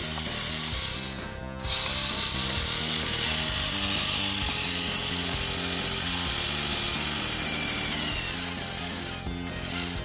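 Small electric motor and gearbox of a DIY remote-control model tractor whirring hard under a heavy load. It eases off briefly about a second in and again near the end. Background music with a steady beat plays underneath.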